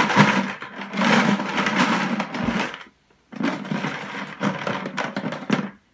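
Felt-tip markers clattering and rattling inside a plastic 5-gallon bucket as it is shaken and rummaged through, in two bouts with a short pause about halfway.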